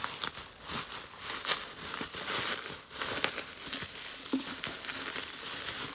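Packaging being pulled open and unwrapped by hand: an irregular run of crackly rustles and crinkles.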